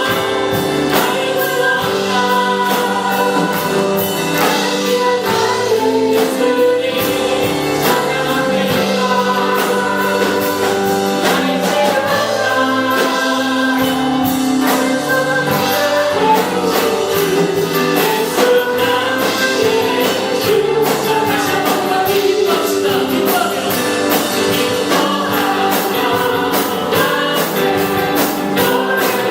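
Gospel praise song sung by a group of voices with instrumental accompaniment and a steady beat.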